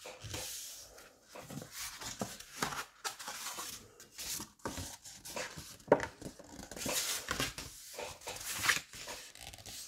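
A scored sheet of craft paper being folded along its score lines and the creases pressed down by hand: irregular rustling and crackling strokes, the sharpest about six seconds in.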